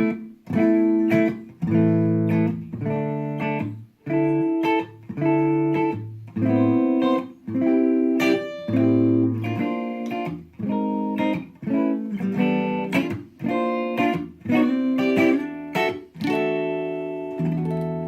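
Gibson Les Paul Special SL electric guitar played clean on the middle pickup position, with the stock neck humbucker and the Seymour Duncan bridge humbucker together. It plays a run of picked chords and notes, each struck sharply and left to ring briefly as the chords change.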